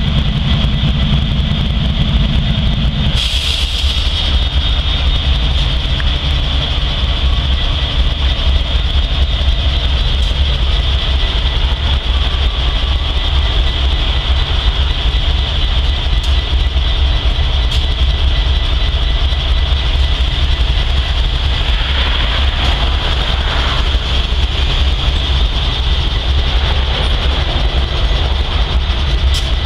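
Norfolk Southern diesel locomotives idling with a steady low rumble, stopped at a grade crossing. A nearby vehicle engine hums for the first three seconds, then a brief loud hiss.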